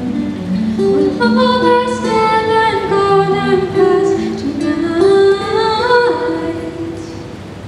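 A girl's solo voice singing a song into a microphone, with acoustic guitar accompaniment; the sung line tails off and grows quieter near the end.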